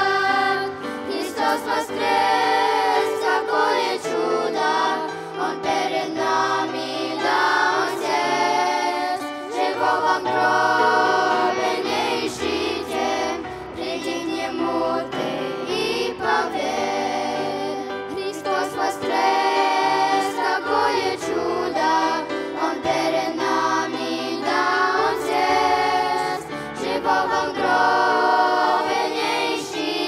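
Children's choir singing into microphones over an instrumental accompaniment with held bass notes that change every couple of seconds.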